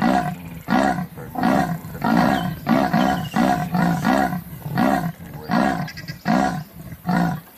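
Leopard calling: a rhythmic series of short, rough grunting calls, about three every two seconds, the big cat's sawing call.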